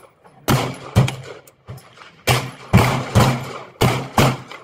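Seven pistol shots fired in quick groups: two about half a second apart, then three, then two. Each is a sharp crack with a short echo after it.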